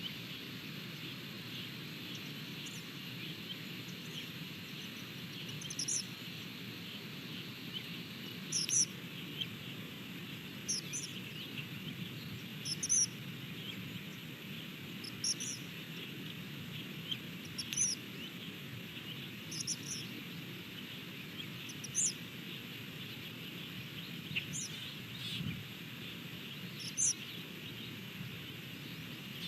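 A bird giving short high chirps, about one every two seconds, over a steady high-pitched insect buzz and a low background rush.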